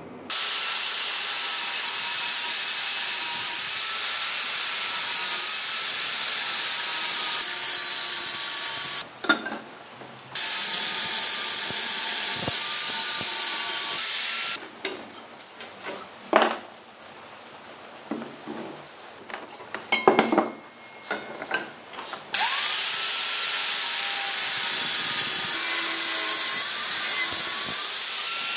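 Handheld angle grinder with a cutting disc slicing through square steel tubing clamped in a vise: a steady high hiss over a wavering whine. It runs three times, with a longer pause near the middle broken by a few sharp knocks.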